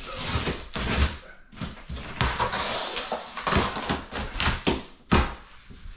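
Cardboard shipping box being pulled and worked open by hand, with rustling and scraping and a few knocks, the sharpest about five seconds in.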